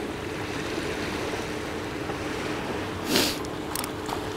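Steady low drone of a distant motorboat engine over sea wash and wind on the rocks, with one brief noise about three seconds in.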